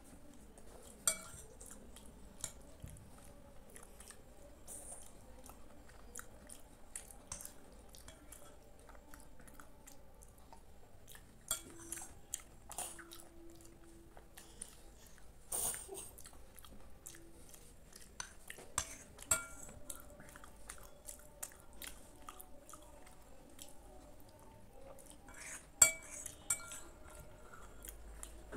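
Metal spoon clinking and scraping against a glass bowl as it scoops up kheer (rice pudding), with occasional sharp clinks, and soft chewing and mouth sounds of eating the pudding between them.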